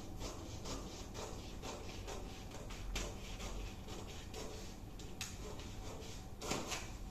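Scissors snipping through brown pattern paper: an irregular run of short, crisp cuts with paper rustle, a few louder snips along the way.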